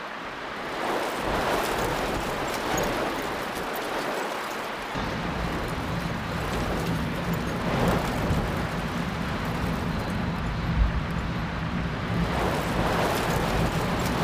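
Floodwater gushing down a stairway, a steady rushing noise. About five seconds in it gives way to storm noise with a steady low rumble underneath.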